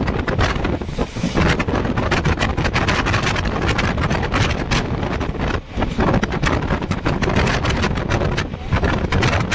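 Wind buffeting the microphone at the open door of a moving passenger train, over the train's steady running noise on the rails.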